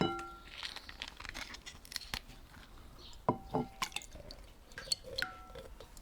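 Hard kitchenware clinking about four times, each strike ringing briefly, with soft handling sounds between.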